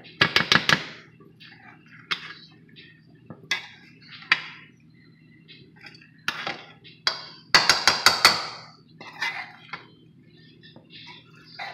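A metal serving spoon scraping and clinking against the side of a metal pot as cooked rice with pigeon peas is stirred up from the bottom. The clinks come in quick runs, the loudest just after the start and again about eight seconds in, with single knocks and scrapes between.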